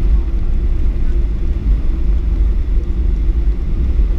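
Steady low rumble of a Boeing 737-800 taxiing, heard inside the cabin: its CFM56 engines running at low power and the airframe rolling over the concrete taxiway.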